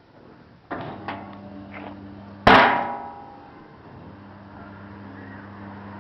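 Green garbage bin being knocked a few times, then one loud bang about two and a half seconds in, with a short metallic ring dying away. A steady low hum runs underneath.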